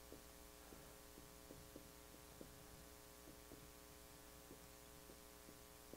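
Near silence: a steady electrical hum, with faint, irregular soft ticks of a dry-erase marker writing on a whiteboard.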